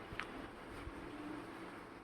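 A steady faint background hum with one brief high-pitched clink a moment in and a fainter tick a little later.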